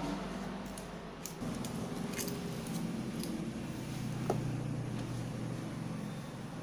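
Small hand tools clicking against metal and wire, a few separate sharp ticks over a steady low hum.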